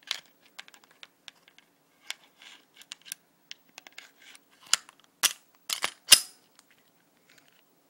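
Glock 27 pistol's slide being fitted back onto its frame: a run of irregular sharp metal clicks and clacks, the loudest cluster about five to six seconds in.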